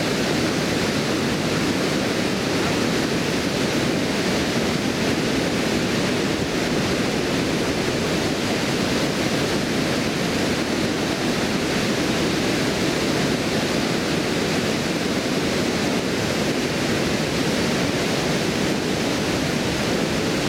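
White water pouring over a stone weir and rushing on down the river: a steady, unbroken rush of falling water.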